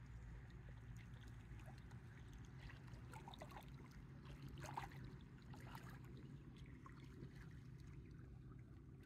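Faint, steady low hum of a distant small motorboat's engine, with small waves lapping and trickling at the stony shore.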